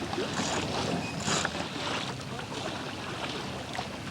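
Water rushing and sloshing along a sailboat's hull, with a couple of brief splashes in the first second and a half, over wind noise on the microphone.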